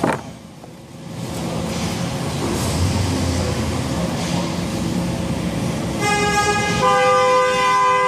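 Busy repair-shop background noise. About six seconds in, a loud steady horn starts; it sounds several pitches at once and grows fuller a moment later.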